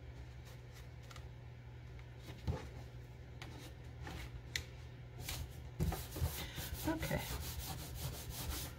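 Hands pressing and rubbing a cardstock panel down onto a card front, paper rustling and sliding on the work surface with a few light taps, growing busier in the last few seconds. A steady low hum runs underneath.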